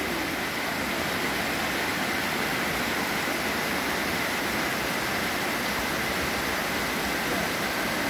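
Steady rush of a mountain stream and waterfall pouring over rocks, even and unbroken.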